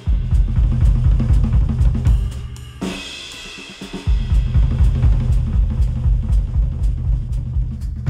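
Drum-kit groove of kick, snare and cymbals from a percussion music track. It is played through FiiO FT1 Pro open-back headphones and picked up by microphones at the earcups. The kick and snare drop out for about a second around three seconds in, leaving a higher ringing, then the full groove comes back.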